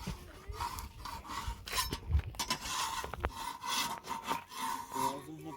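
Repeated scraping strokes, several a second, over a faint steady tone.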